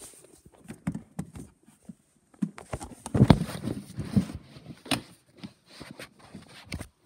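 Irregular knocks, bumps and rubbing of the recording phone being handled and moved right against the microphone, loudest a little after three seconds in.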